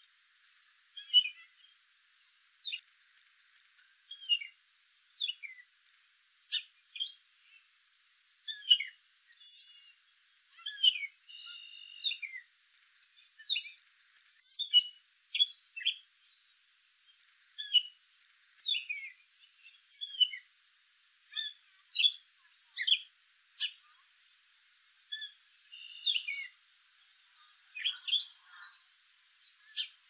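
Gray catbird singing: a long, rambling run of short, varied phrases, many of them quick falling notes, about one or two a second with brief gaps between.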